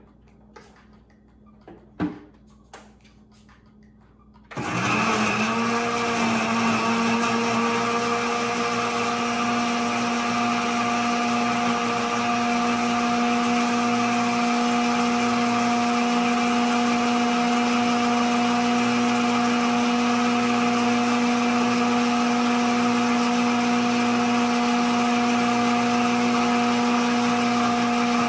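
A few light handling clicks, then about four and a half seconds in a high-speed blender starts up: its motor pitch rises briefly and settles into a steady, loud high-speed whir as it blends chopped squash and water.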